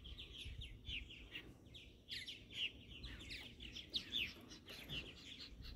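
A flock of purple martins calling in flight: a continuous chatter of many short, high chirps, overlapping and often falling in pitch.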